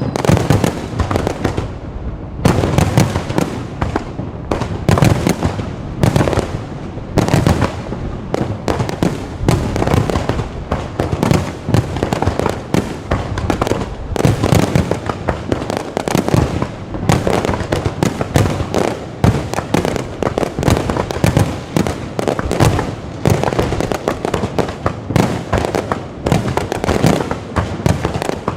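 Low-altitude fireworks batteries firing in a dense, unbroken barrage: sharp bangs and crackling bursts, several a second, with no pause.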